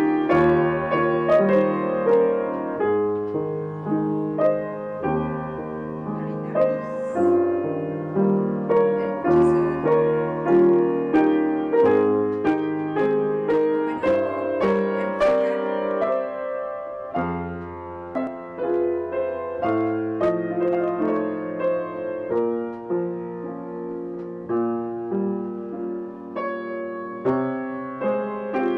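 Solo piano playing a melody over chords, with new notes struck every second or so throughout.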